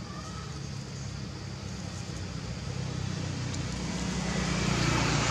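A motor vehicle's engine running steadily, growing louder toward the end as it draws near.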